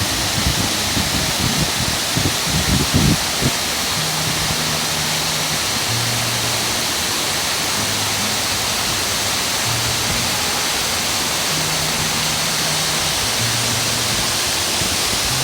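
Rushing water of a mountain stream, a loud steady hiss, with soft background music playing low sustained notes that change every second or two. A few low bumps in the first three seconds.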